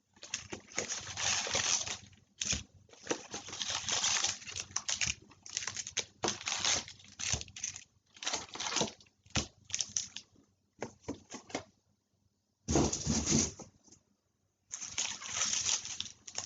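Foil trading-card packs being torn open and the cards handled: irregular crinkling and rustling in short bursts, with a louder, fuller burst late on.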